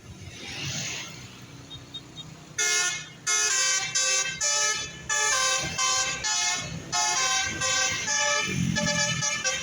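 Telolet bus horn, a multi-tone musical air horn, playing a fast tune of notes and chords that jump every fraction of a second, starting about two and a half seconds in. Before it comes a brief whoosh.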